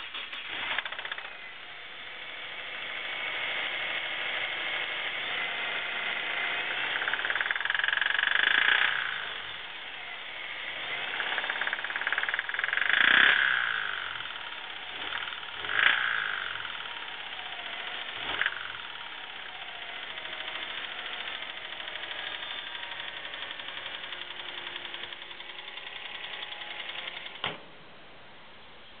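2009 Subaru WRX's turbocharged flat-four engine running with a rod knock, the sign of a failed connecting-rod bearing that calls for a new engine. It swells louder three times in the middle, as if revved, and cuts off suddenly near the end.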